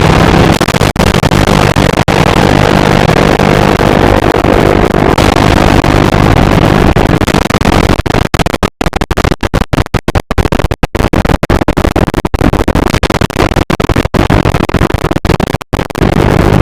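Loud, harsh electronic noise sound effect. It runs as a dense, gritty wash and, from about halfway through, is chopped by many sudden short cut-outs into a stuttering, glitchy texture.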